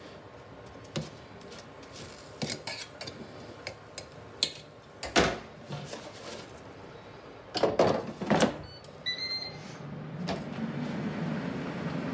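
Ninja dual-basket air fryer: light clicks and knocks, then loud clattering as the baskets are slid back into the drawers, a few short beeps from the control panel, and the fan starting up into a steady low hum as cooking resumes.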